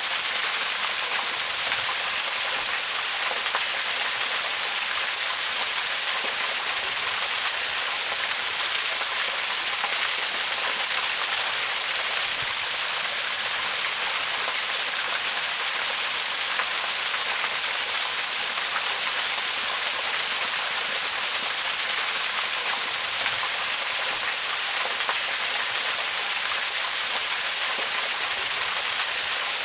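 Waterfall: a steady, unbroken rush of falling water, mostly bright hiss with little low rumble.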